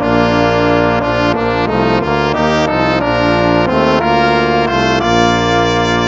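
Instrumental background music: sustained chords with a melody of changing notes, brass-like in tone.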